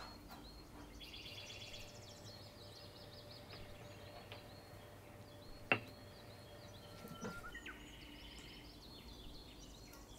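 Faint bird chirps and short trills, with one sharp click a little before six seconds in.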